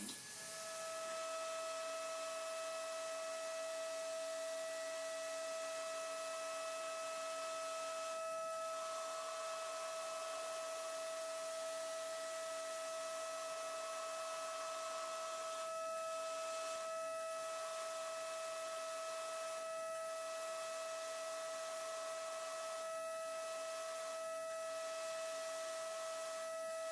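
DATRON M8Cube high-speed machining center milling, its spindle giving a steady high-pitched whine over a constant hiss, with brief dips in the sound every few seconds.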